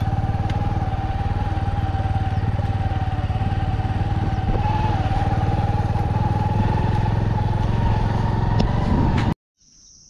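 Motorcycle engine running steadily while ridden along a dirt track, with a steady whine over a low rumble; it cuts off abruptly near the end.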